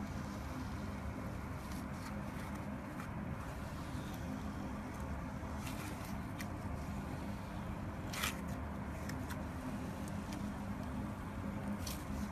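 Clear glitter slime being squeezed and kneaded by hand, giving scattered small clicks and crackling pops, the sharpest about eight seconds in, over a steady low hum.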